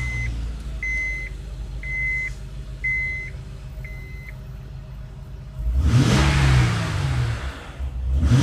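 2007 Honda Ridgeline's 3.5-litre V6 idling in park while a dashboard warning chime beeps about once a second, five times. About six seconds in the engine is revved and falls back, and it is revved again near the end.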